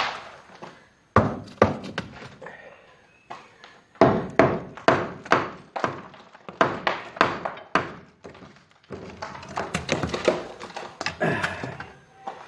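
A run of knocks and thuds in a small room, several a second in clusters, with a pause about three seconds in and another near the end.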